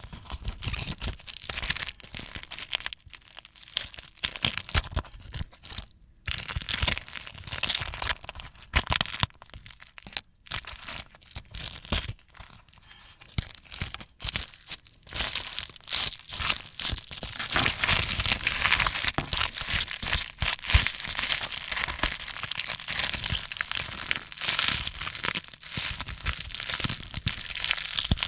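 A sheet of dried slime being peeled off a plate, crackling and tearing in a dense run of small crisp snaps. Short pauses come in the first half, and the crackling runs steadier and louder in the second half.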